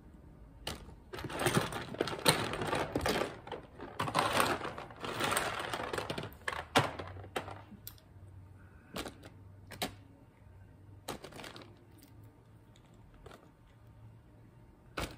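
Small LEGO tires and wheels clattering into a plastic zip-lock bag in a plastic tub, with the bag crinkling. The clatter is dense for the first half, then thins to a few scattered single clicks.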